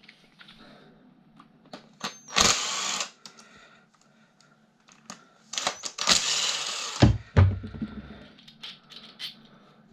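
Clicks and clatter of small metal and plastic parts being handled while a desk fan motor is taken apart, with two short noisy bursts about two and a half and six seconds in, and a low thud just after the second.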